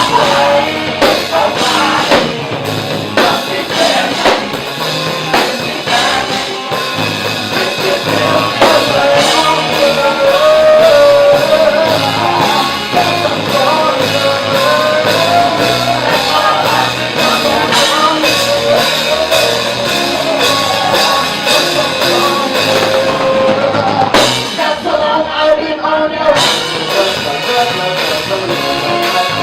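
Live band playing, with drum kit, bass and a wavering lead melody over the groove; the cymbals drop out briefly near the end.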